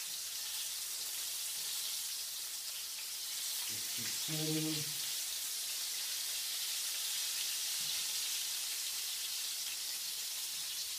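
Flour-coated chicken breast pieces shallow-frying in oil in a frying pan: a steady high sizzle. A brief voice sound about four seconds in.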